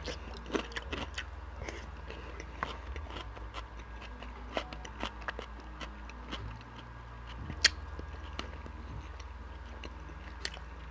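Close-miked eating: scattered soft clicks and smacks of chewing, with one sharper click about three-quarters of the way through, over a low steady hum.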